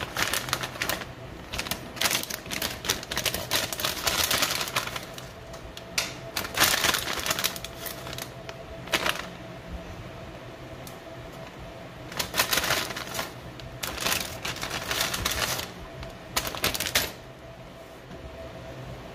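Plastic bag of shredded cheese crinkling and crackling as it is squeezed and shaken out, in several spells of rapid crackle that stop about two seconds before the end, over a faint steady hum.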